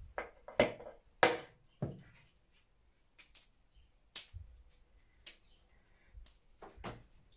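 Walnuts being cracked with a stone on a wooden board: a few sharp knocks in the first two seconds, the loudest just over a second in, then scattered clicks of shells being broken apart by hand.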